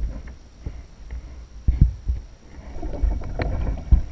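Several dull thumps and knocks on a plastic fishing kayak as it is handled, with a short rustling stretch about three seconds in.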